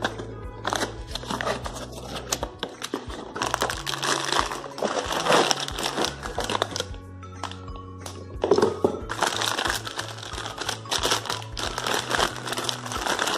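Plastic wrapping and cardboard packaging crinkling and rustling in irregular handfuls as a stainless steel idiyappam press is unpacked, over background music with a steady low bass line.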